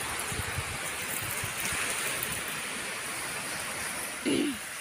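Small waves washing onto a pebble beach: a steady rushing wash. A short voice with falling pitch cuts in briefly near the end.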